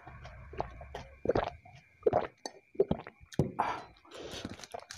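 Person gulping water from a glass mug close to the microphone: several separate swallows, loudest in the middle, then the glass mug set down on the table near the end.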